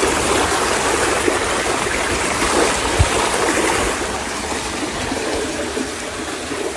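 Steady rush of flowing water, with one short knock about three seconds in.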